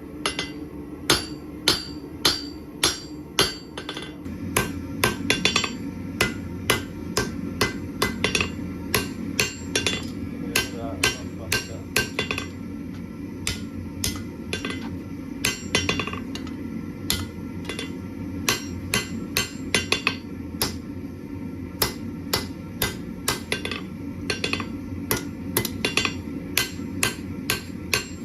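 Blacksmith's hammer striking hot steel on an anvil in a long run of blows, about two a second, each with a short metallic ring, as the steel bar is drawn out into a knife handle. A steady low rumble runs beneath and grows louder about four seconds in.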